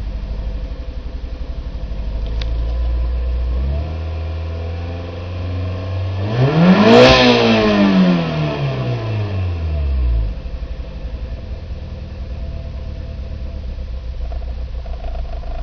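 Nissan Micra K11's 1.0-litre four-cylinder engine idling with an uneven, pulsing beat. It is revved once about six seconds in and falls back to idle by about ten seconds. The lumpy running is the sign of cylinder 1 misfiring below 2,500 rpm.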